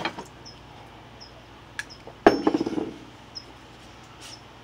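A small hard object clattering onto a concrete floor: one sharp hit about two seconds in, then a quick rattle of bounces that dies away within about half a second. A few light clicks come just before it.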